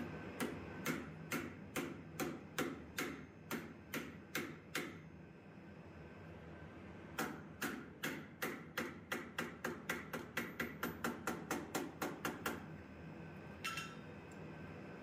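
Hand hammer tapping red-hot steel clamped in a bench vise, flattening the curled wings of a forged dragonfly. About a dozen light blows at roughly two a second, a short pause, then a quicker run of some twenty taps, each with a brief metallic ring, and a single ringing clink near the end.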